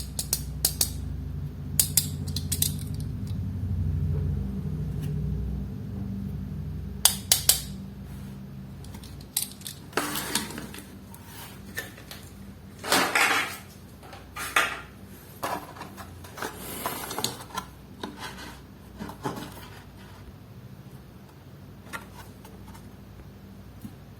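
Handling of die-cast toy cars and their packaging: sharp clicks and taps of small hard objects, then a run of crinkling plastic from about ten seconds in, with a low hum under the first few seconds.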